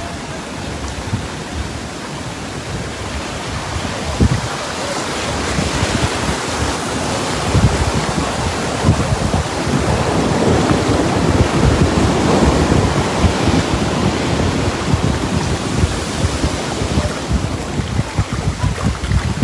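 Sea surge: waves breaking and seawater rushing in a steady, loud wash across flooded sand and around huts, with wind gusting on the microphone. The rush swells over the first half and stays loudest around the middle.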